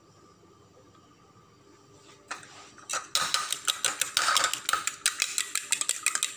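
A metal fork beating raw egg in a small plastic bowl. Rapid clicking and scraping of the fork against the bowl starts about three seconds in, after a quiet start.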